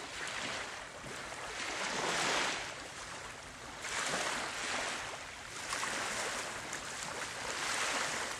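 Small Baltic Sea waves washing onto the shore: a steady rush that swells and eases every second or two.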